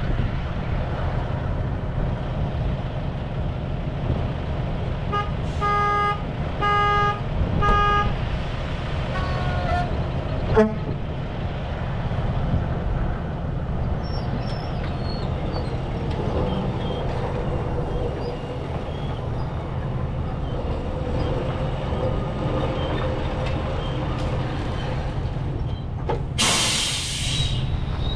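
Heavy truck diesel engines running steadily, with three short horn toots about five seconds in. A sharp click follows, and near the end comes a loud burst of hissing air like an air brake being set.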